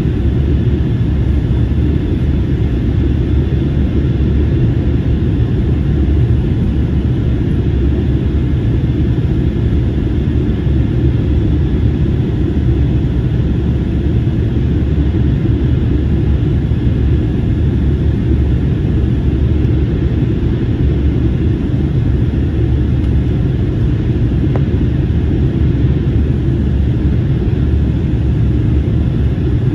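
Steady low rumble of cabin noise inside an Airbus A321neo in flight: its Pratt & Whitney PW1100G geared turbofans and the airflow over the fuselage, with no changes in level.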